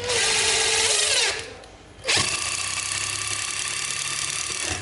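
Ryobi BID-1225 cordless impact driver driving a screw into wood. There is one burst of about a second that winds down, then after a short pause a second steady run of about two and a half seconds that stops just before the end. The screw goes in smoothly.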